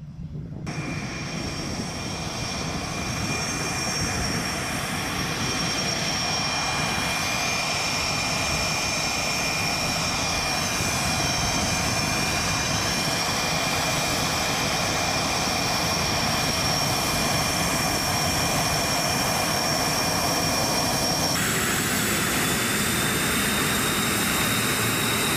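Twin jet engines of an F/A-18D Hornet running: a loud, steady roar with a high whine, building over the first few seconds. About three-quarters of the way through, the whine changes to a different pitch.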